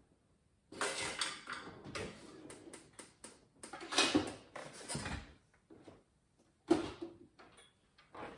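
Rummaging through a metal tool chest drawer: loose tools clinking and clattering in irregular bursts, with a few sharper knocks, the loudest about four seconds in.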